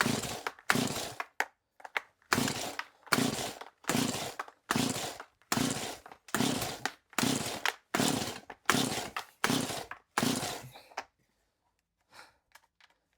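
Stihl MS180c chainsaw's replacement recoil starter pulled over and over in quick succession, about a dozen rapid pulls cranking the engine without it firing. The pulls stop about eleven seconds in, followed by a few faint clicks.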